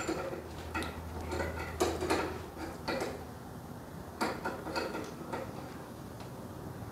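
Scattered light metallic clicks and clinks as steel brake line tubing and hand tools such as a tube bender are handled, with a low hum under the first few seconds.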